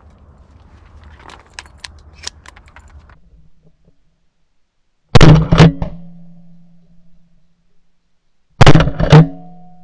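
Shotgun fire: two quick loud reports about five seconds in, then two more near the end, each pair followed by a brief ringing tail.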